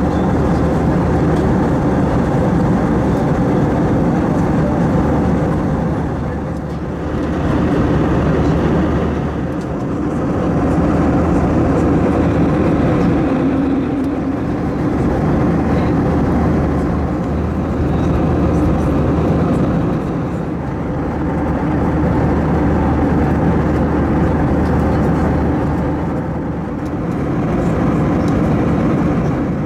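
Airbus A321 jet engines and airframe giving a loud, steady rumble with a low hum, swelling and easing in loudness every several seconds.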